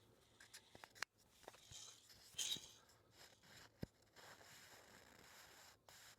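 Near silence with scattered faint clicks and rustles, and a brief soft hiss about two and a half seconds in.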